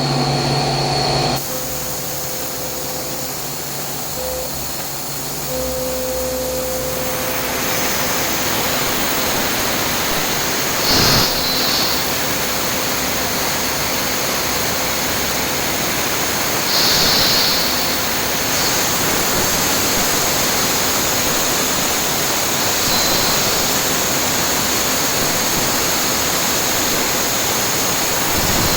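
Yangtuo VMC950 CNC vertical machining centre machining carbon steel: a steady rushing hiss with a high, steady whine. The hiss grows louder about seven seconds in, and there are a couple of brief louder swells.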